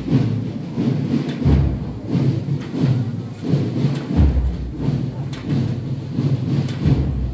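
Slow processional music: a deep, muffled drum beat about every two and a half seconds over a continuous low-pitched background.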